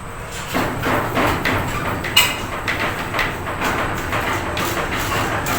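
Electrical wire being fed through PVC conduit: irregular scraping and rustling with small knocks, and a sharper click about two seconds in.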